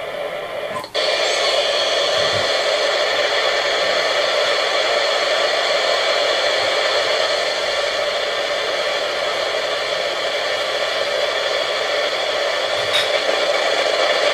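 Sony ICF-2001D receiver putting out a steady hiss of static and interference through its speaker, with no station coming through. It cuts out for a moment about a second in, then comes back louder. The owner puts the poor reception down to the other equipment switched on around the bench.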